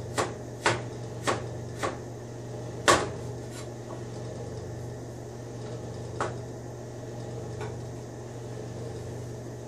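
Chef's knife cutting stacked carrot slices into julienne on a cutting board: sharp knocks of the blade on the board, about five in the first three seconds with the loudest near three seconds in, then two fainter ones later. A steady low hum runs underneath.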